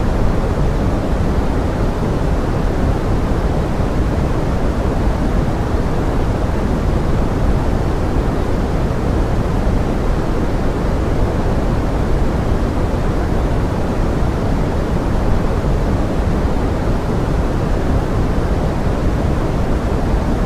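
Steady pink noise blended with forest rain, an even, unbroken hiss weighted toward the low end.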